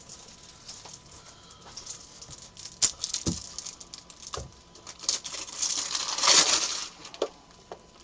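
Small objects handled on a tabletop: scattered clicks and taps, one sharp click about three seconds in, and a stretch of rustling and sliding around six seconds in.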